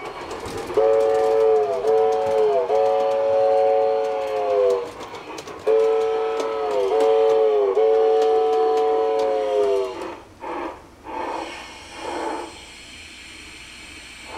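LGB 2019S G-scale model steam locomotive's sound unit sounding a chime steam whistle, set off by magnets in the track: two short blasts and a long one, each sagging in pitch as it ends, then the same again. Near the end come a few steam chuffs, about two a second.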